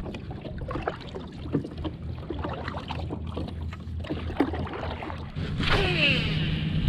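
Kayak paddling: a short one-handed paddle dipping and splashing, with small scattered knocks. About five and a half seconds in comes a fishing cast, a louder whoosh with a falling whir from the line and reel.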